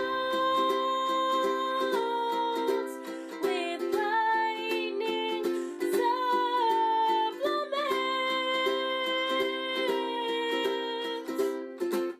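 Music: quickly plucked ukulele strings under a slow melody of long held notes that glide from one pitch to the next.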